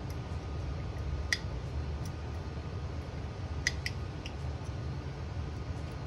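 A few small, sharp metallic clicks as a steel pin punch and the trigger housing tap against the rifle's action while the pin holes are lined up. There is one click about a second in and three close together around four seconds in, over a steady low hum.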